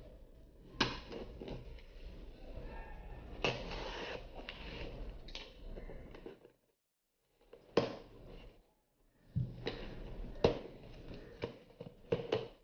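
Cardboard shipping box being slit open and handled: tape and cardboard scraping and rustling, broken by sharp taps and knocks of the box.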